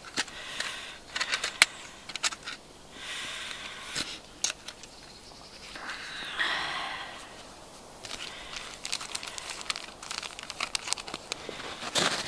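Handling noise: bags and small items rustling and crinkling, with scattered clicks and taps as things are picked up and moved about.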